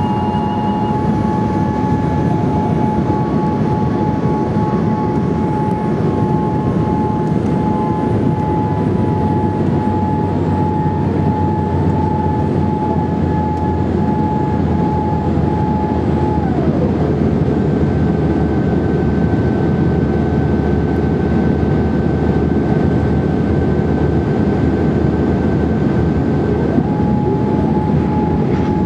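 Steady cabin roar inside a Boeing 787-8 Dreamliner on approach, with its GEnx-1B engines and the airflow over the extended flaps. A thin whine within the noise slides down in pitch about halfway through and climbs back near the end, as the engine thrust changes.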